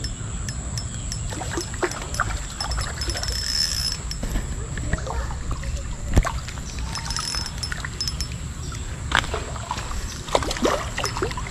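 Small river running steadily, with scattered clicks and splashes from a hooked hampala being played toward the bank on a spinning rod and reel. The splashes come sharper and closer together about nine to eleven seconds in.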